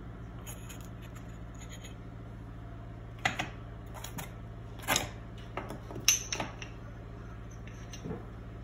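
Tumbled stone tiles clacking against each other and the countertop as they are handled and set down: a handful of sharp knocks spread across a few seconds, over a steady low hum.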